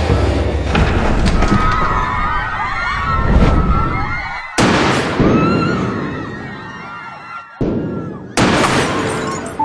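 Film-soundtrack gunfire from handguns: about four sharp shots, each with a long fading tail, two around the middle and two near the end.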